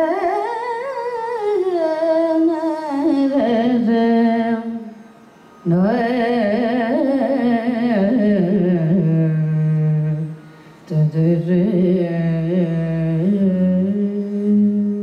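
Female Carnatic vocalist singing solo, an unworded opening raga phrase in Natabhairavi with gliding, oscillating ornaments on the notes. She sings three long phrases with short breath breaks between them, the later ones settling on steady held notes.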